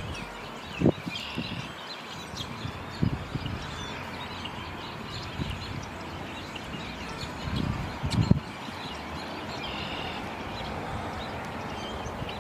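Outdoor ambience with scattered short bird chirps over a steady background hiss, broken by a few low thumps, the loudest about a second in and again near eight seconds.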